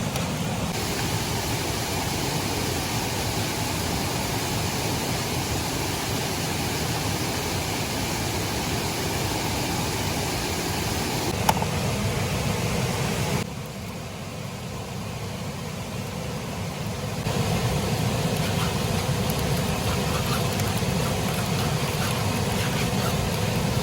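Steady rushing noise with no clear tone. It drops abruptly for a few seconds about 13 seconds in and comes back near 17 seconds, with a single sharp click shortly before the drop.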